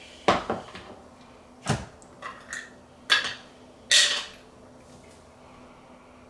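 Metal screw lid of a glass pickle jar being twisted off and set down on a wooden counter: about six separate clicks and knocks over the first four seconds or so, the last one with a short rasp.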